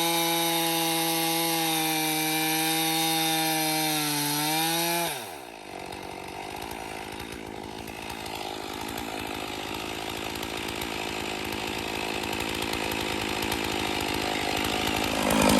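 Stihl MS461 two-stroke chainsaw running at full throttle through a vertical milling cut, its pitch sagging slightly under load. About five seconds in, the throttle is released and the engine falls away to a fast idle. It idles for the rest of the time, slowly getting louder.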